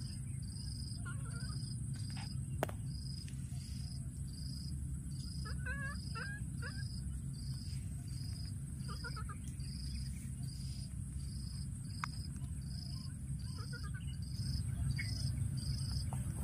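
A baby monkey gives short, wavering high-pitched calls in scattered bouts, over a steady insect chirp repeating about twice a second. A steady low rumble runs underneath.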